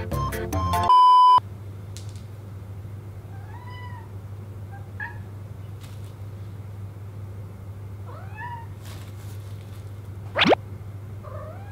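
Domestic cats meowing several short times over a steady low hum. A loud steady beep sounds about a second in, and a quick, sharply rising whistle comes near the end.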